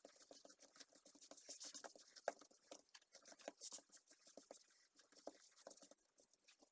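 Faint, irregular soft pats and sticky squishes of hands kneading a soft, sticky dough on a flour-dusted silicone mat.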